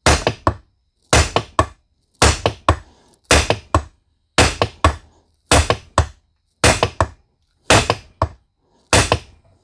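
Steady hammer blows on an old socket used as a drift, metal on metal, driving a worn U-joint bearing cap out of a Ford F250 driveshaft yoke. The blows come about once a second, nine in all, each a hard strike followed by two or three lighter quick taps. The cap is just starting to move.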